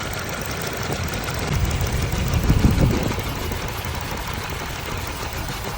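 Car engine idling with a misfire (engine 'missing'). It runs steadily, grows louder for about a second and a half around the middle, then settles back.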